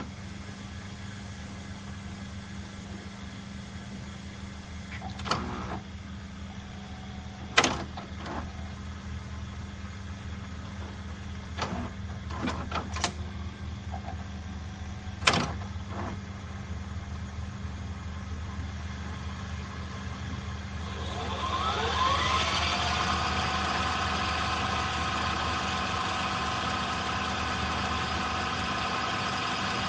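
VHS video cassette recorder mechanism: a steady low hum broken by several sharp clicks and clunks. About three-quarters of the way through, a motor spins up with a rising whine that settles into a steady whir.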